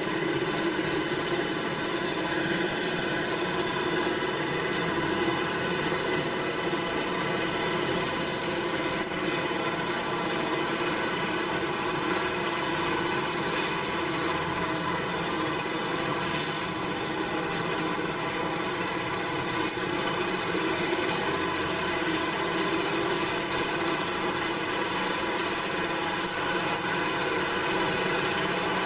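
Farm machinery running steadily: an engine's even drone with a dense mechanical whir over it, unchanging throughout.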